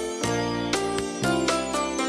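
Music: a bright melodic tune with pitched notes struck about four times a second.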